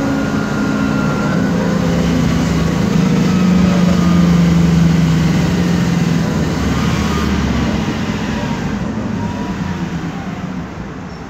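Inside a 2008 MAN Lion's Classic city bus under way: a loud drone with a steady whine from the drive axle's differential, which the uploader calls noisy, over engine and road noise. The whine is strongest in the middle and grows quieter near the end.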